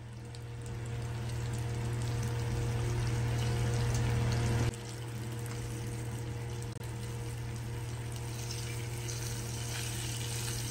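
Fish pieces sizzling in hot oil as they shallow-fry in a frying pan, over a steady low hum. In the second half a spatula turns the pieces over in the pan.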